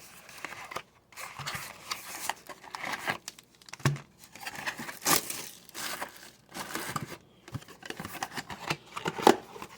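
Plastic shrink wrap crinkling and tearing in irregular bursts as it is cut and pulled off a sealed trading-card blaster box.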